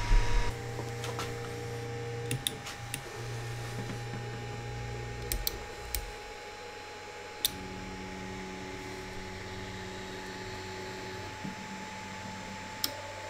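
Ender 3 V2 3D printer's stepper motors whining steadily through an auto-home cycle with its BLTouch probe, the pitch jumping to a new steady note each time a different axis starts or stops moving. Several sharp clicks come in between the moves.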